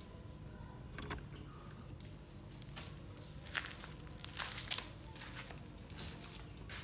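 Scattered soft rustling and crinkling with a few sharp crackles as a heap of fresh red chillies is handled beside plastic bags. The sounds come in irregular clusters, busiest in the middle.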